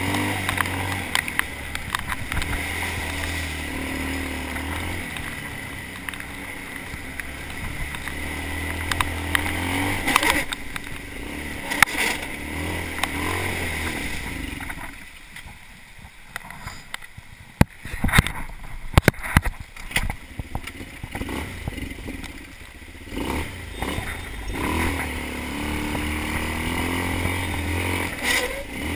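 Sport ATV (quad bike) engine running on a dirt trail, its pitch rising and falling as the throttle is worked. For a stretch in the middle the engine drops back while the quad rolls downhill, and sharp knocks and clatter from the bumps come through.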